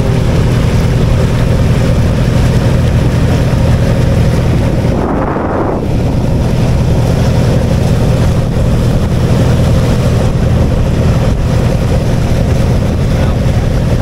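Tour cruise boat's engine running with a steady low hum while the boat is underway, with wind buffeting the microphone and water rushing along the hull.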